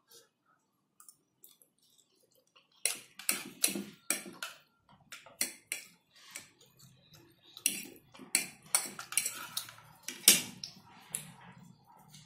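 Close-miked eating of instant noodles: after a near-silent stretch, a run of short wet slurps and open-mouthed chewing smacks begins about three seconds in and continues with brief gaps.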